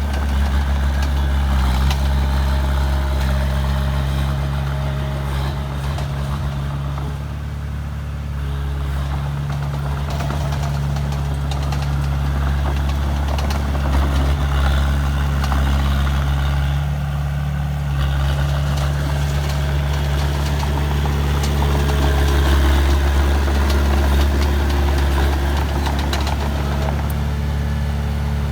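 Heavy diesel engine of earthmoving machinery running steadily with a low, even hum.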